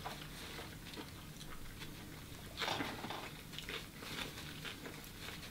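Faint chewing and mouth noises of a man eating a forkful of cheese fries with jalapeño and bacon, with a few small clicks.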